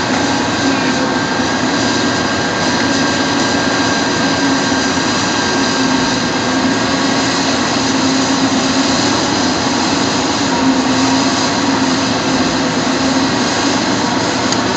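Caterpillar 330 hydraulic excavator's diesel engine running steadily, with a thin steady whine over its drone.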